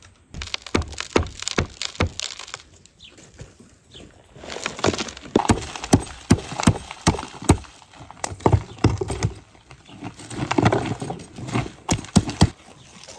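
A cleaver blade knocking and chipping into a hard baked clay crust on a wooden cutting board, the dried mud cracking and crumbling away in chunks. Irregular sharp knocks come in several flurries with short pauses between them.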